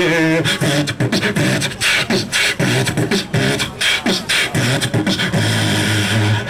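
Human beatboxing into a handheld microphone: a fast run of vocal clicks and snare hits over a held, hummed low bass note, with a short sung pitched line right at the start.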